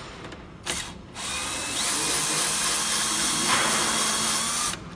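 Electric cable stripping machine running: a short burst about half a second in, then a steady loud whir for about three and a half seconds that stops suddenly near the end.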